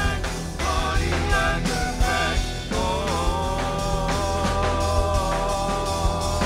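Live rock band playing, with drum kit, bass and keyboards under a wavering lead line that gives way to one long held note about three seconds in.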